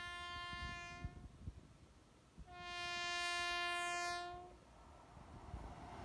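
Air horn of an Indian Railways WAP-7 electric locomotive sounding twice as it approaches at speed: a blast that cuts off about a second in, then a louder, steady blast of about two seconds. Near the end, the rising rumble of the oncoming train builds.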